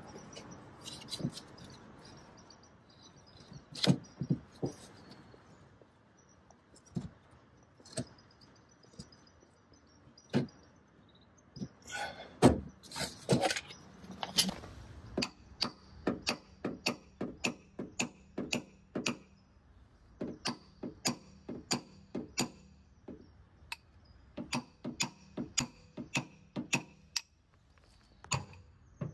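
Paintless dent repair tooling working the metal of a Tesla Model 3's rear quarter panel: a string of sharp metallic clicks and taps, scattered at first and settling to about two a second in the second half, with some louder handling noise about halfway through.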